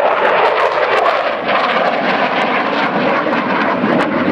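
F-16 fighter jet flying its display overhead, its jet engine a loud, steady rushing noise.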